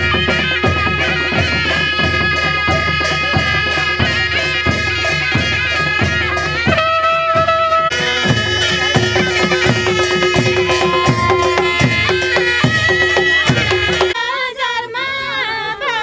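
Panche baja music: a sahanai reed pipe plays a held melody over a drone, with drums and cymbals keeping a steady beat of about two strokes a second. About two seconds before the end the band stops suddenly and a singing voice takes over.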